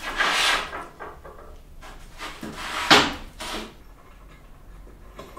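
Hard objects handled at an open ceramics kiln: a rough scraping rustle at the start, then a sharp knock about three seconds in and a smaller one soon after.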